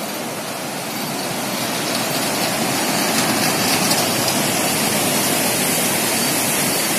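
Fast-flowing river water rushing, a steady loud wash of noise that grows slightly louder.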